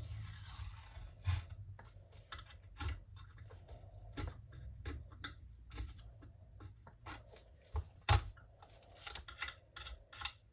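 Irregular small clicks, taps and scratches of hands working at a piece on a work surface, with one louder knock about eight seconds in, over a low steady hum.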